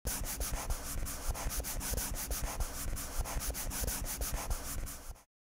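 Scribbling sound effect of a marker being rubbed rapidly back and forth over paper while colouring in, many quick strokes. It cuts off sharply about five seconds in.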